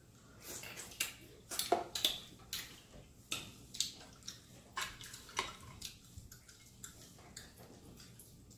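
Close-up eating mouth sounds from people eating a seafood boil: wet lip-smacking and sucking as they chew, in an irregular run of short clicks that thins out near the end.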